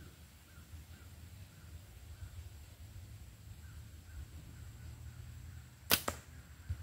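A slingshot being shot: the bands release with a sharp double snap about six seconds in, followed under a second later by a softer low thump. Before the shot there is only a low steady outdoor rumble while the pouch is loaded and drawn.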